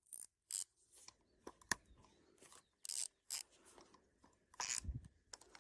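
Scattered faint clicks and rustles of handling, with a dull low thump near the end.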